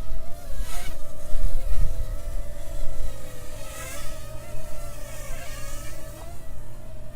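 Parrot Mambo mini quadcopter's propellers buzzing in flight, the whine wavering in pitch as it is blown around by gusts. Wind rumbles on the microphone, strongest about one and a half to two seconds in.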